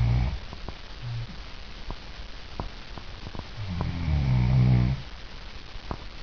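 A sleeping woman snoring: a breath trailing off at the start, a short snort about a second in, and one long, loud snore about four seconds in. Faint sharp clicks sound in the pauses between.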